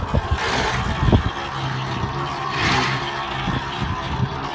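A steady engine hum, with a rushing noise that swells about every two seconds and a few low thumps in the first second or so.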